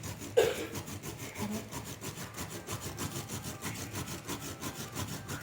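Kencur (aromatic ginger) rhizome being rubbed back and forth over a hand grater: quick, even rasping strokes, several a second. A brief louder sound comes about half a second in.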